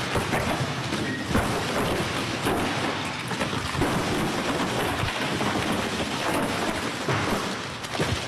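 Wind buffeting the microphone: a steady rushing noise broken by frequent rumbling thumps.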